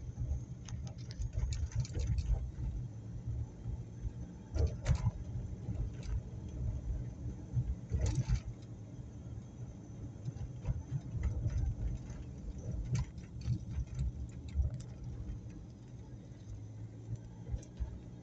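Car driving through town streets: a steady low rumble of road and engine noise, with scattered light clicks and rattles and two louder knocks about 5 and 8 seconds in.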